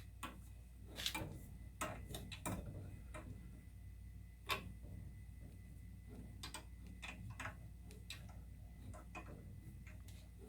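Irregular faint clicks and ticks of a tubing cutter being turned around a copper water pipe to cut through it, over a low steady hum.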